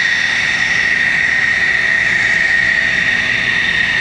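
Jet aircraft engine running loudly, a steady high whine over a constant rush of noise with no change in pitch.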